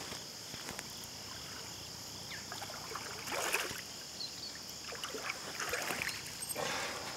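A hooked largemouth-type bass splashing at the water's surface while being played to the bank, in short splashy bursts about three and a half seconds in and again in the last couple of seconds, over a steady high hiss.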